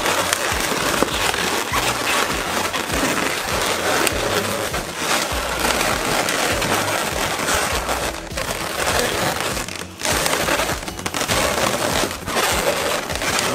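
Twisted latex 260 modelling balloons rubbing and scraping against each other and against hands as a balloon loop is forced through a twisted triangle. The rubbing is continuous and dense, easing briefly a couple of times near the end.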